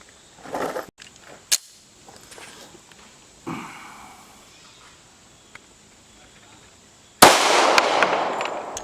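A 1911 .45 ACP Commander with a Schuemann Hybrid-Comp two-port barrel fires a single shot a little over seven seconds in: one sharp, loud report with a long echoing tail. A fainter bang with a short tail comes earlier, about three and a half seconds in.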